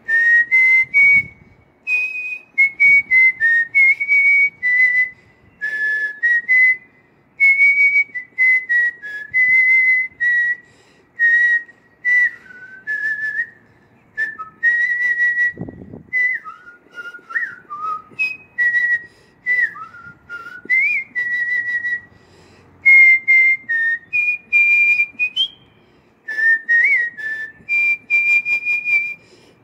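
A person whistling a tune: clear, high notes stepping up and down in short phrases with brief pauses, with a few sliding notes partway through.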